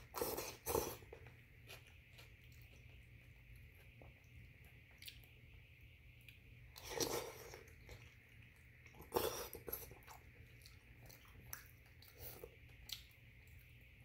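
A person eating rice porridge with chicken and glass noodles off a spoon: loud slurps of noodles just after the start, about seven seconds in and about nine seconds in, with quieter chewing and small mouth clicks in between.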